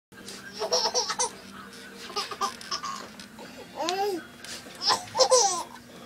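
Baby laughing in four bursts of short, quick giggles, with quieter gaps between.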